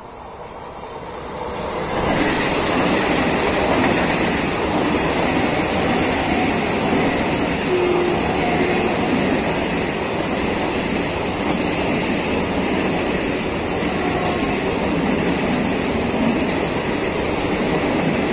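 Vande Bharat electric train set running through the station at high speed. It grows louder over the first two seconds as it arrives, then gives a loud, steady rush of wheels on rail and air as the coaches go past.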